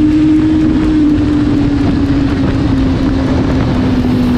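Sportbike engine heard from onboard while riding, its note easing slowly downward as the bike slows off the throttle, over steady wind rush on the microphone.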